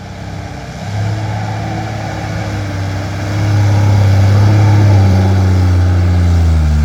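Loaded dump truck's diesel engine pulling hard in second gear up out of a pit. It gets louder about a second in and again after about three seconds, and its pitch slowly sinks as it labours under the load.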